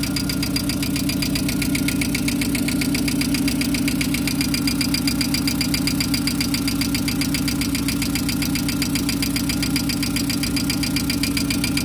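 Volkswagen Gol engine idling steadily with a fast, light tapping from the valvetrain. The owner takes the tapping for hydraulic lifters not yet filled with oil, made worse by a worn camshaft and worn lifter bores.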